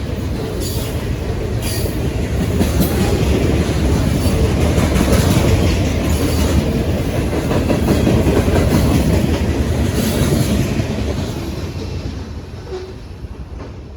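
Freight cars of a mixed manifest train rolling past, with the clickety-clack of wheels on the rails and brief high-pitched wheel squeal, the sound dying away over the last few seconds as the train goes by.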